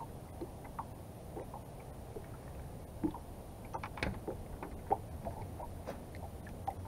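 Small waves lapping and slapping against a boat hull in irregular little splashes, over a steady low rumble.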